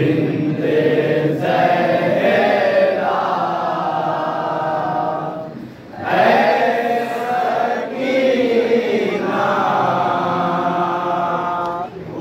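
A group of men chanting an Urdu noha, a Shia mourning lament, in unison without instruments. It comes in long sung phrases, with a short break for breath about halfway through and again near the end.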